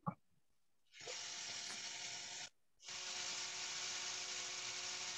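Dremel rotary tool running steadily while held against a model train truck's pickup roller, spinning it to work in fresh oil. It runs in two stretches with a short break about two and a half seconds in. The roller is tight.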